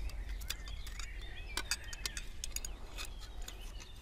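Irregular light clicks and taps of a knife against a small ceramic bowl as raw beetroot spirals are cut, over faint birdsong and a low rumble of wind.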